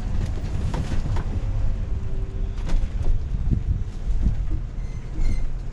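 Low, steady engine and road rumble heard inside a moving camper RV's cab, with a few sharp knocks from the cabin.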